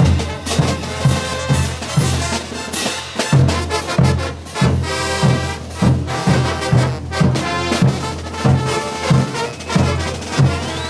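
Bolivian brass band playing: trumpets and trombones carrying the tune over a steady bass drum and snare beat.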